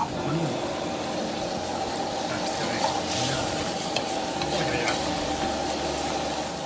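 Mutton braising in a wok over high heat, the liquid bubbling and sizzling steadily, while a steel ladle stirs and scrapes through the meat with a few sharp clicks against the wok.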